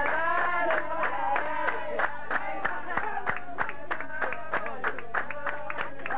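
Voices singing with rhythmic hand clapping, the clapping strongest from about two seconds in.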